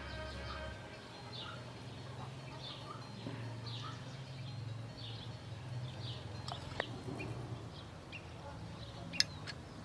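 Birds chirping intermittently in short calls over a low steady hum, with a sharp click about nine seconds in.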